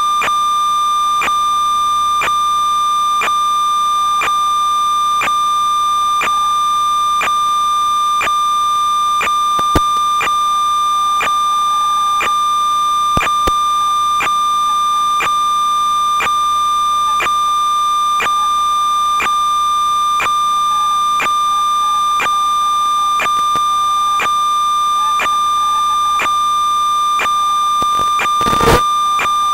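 Steady electronic tone with a sharp click about every two-thirds of a second, like interference on the audio track of an analog FPV video recording. A short burst of noise about a second before the end.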